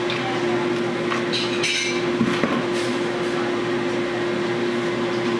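Green coffee beans pouring and rattling from a plastic bucket into a drum coffee roaster's steel hopper over the first couple of seconds, with a few light knocks. A steady machine hum from the running roaster continues underneath.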